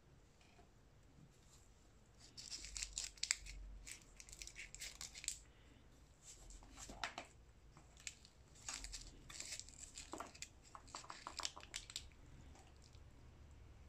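Maine coon cat tearing at and chewing a treat stick held in the hand, in several faint bursts of crackly, crunchy sound from about two seconds in until near the end.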